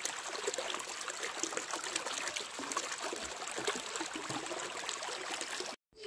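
Shallow stream water trickling over river stones, a steady splashing hiss that cuts off abruptly near the end.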